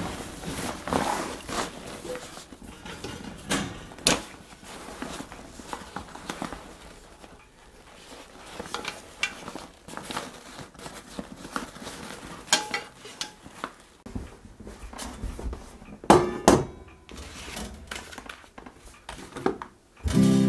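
Camping gear being handled: rustling at a fabric gear bag and scattered knocks and clinks of metal cookware and stove parts, with a few louder clatters about three-quarters of the way through.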